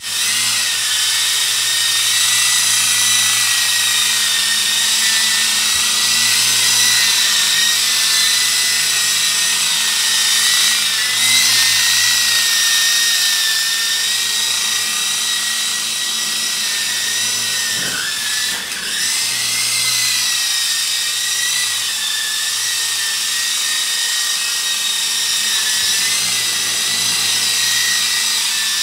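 Small indoor RC helicopter's electric motor and rotor running continuously with a high-pitched whine whose pitch wavers slightly as it flies. About eighteen seconds in the whine briefly dips in pitch and level before recovering.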